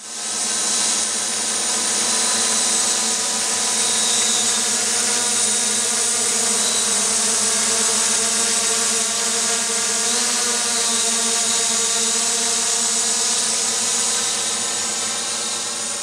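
Tarot 650 X8 coaxial octocopter in flight: the steady buzzing whine of its eight electric motors and propellers. The pitch wavers briefly about ten seconds in, and the sound grows slightly fainter near the end as the drone moves away.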